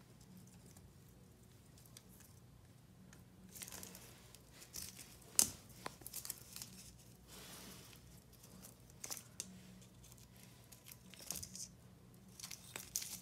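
Faint scattered clicks and crackles of feeding: metal tongs tapping a clear plastic dish as a baby Argentine black and white tegu snaps at and chews dubia roaches. The sharpest click comes about five and a half seconds in.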